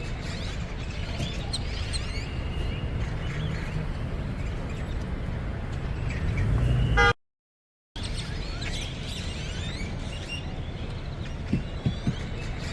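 Flock of birds chirping and calling busily over a steady low rumble; the sound drops out for almost a second about seven seconds in, then resumes.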